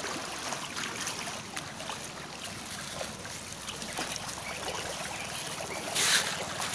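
River water running and splashing steadily, with a louder splash about six seconds in.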